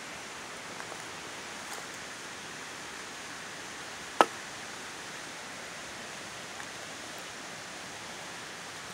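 Steady outdoor background hiss, with a single sharp click about four seconds in.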